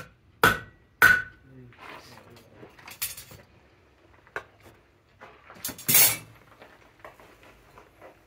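Blacksmith's hand hammer striking a red-hot horseshoe on an anvil. Two hard blows about half a second apart each leave a short ring, followed by lighter metallic knocks. Another loud clatter of metal comes about six seconds in.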